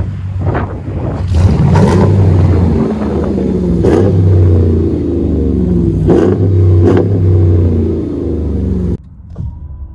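Dodge Ram 1500's 5.7 L HEMI V8 revving several times through an aftermarket dual exhaust with 2 1/4-inch mandrel-bent pipe, a loud deep rumble rising and falling with each blip, with a few sharp cracks. It cuts off abruptly about nine seconds in.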